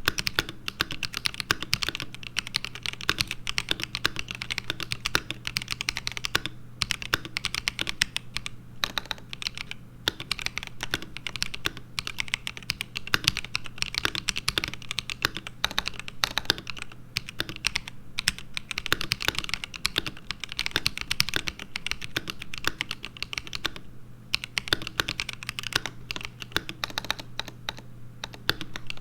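Typing on an ASUS ROG Azoth mechanical keyboard with pre-lubed ROG NX Linear Red switches, fast continuous keystrokes with a few short pauses, under a faint steady hum.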